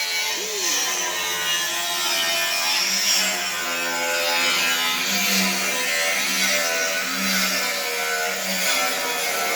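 A power tool running steadily, a continuous whir with a slightly wavering pitch.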